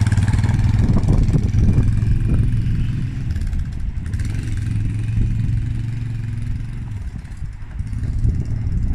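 Quad bike (ATV) engine running as it pulls away and drives off, a steady low hum that fades as the bike moves farther away.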